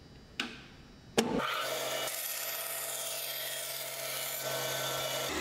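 A bandsaw cuts straight through a sheet of plywood fed along the fence: a steady motor hum under the blade's rasp in the wood. It starts abruptly after a sharp click a little over a second in.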